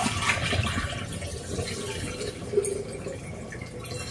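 Water running from a kitchen tap into the sink, growing quieter over the few seconds.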